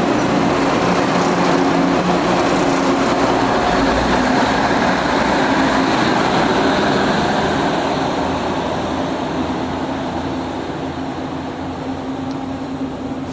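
Budd RDC diesel railcars running, a steady diesel drone with a held low tone over rolling rail noise, gradually getting quieter from about eight seconds in.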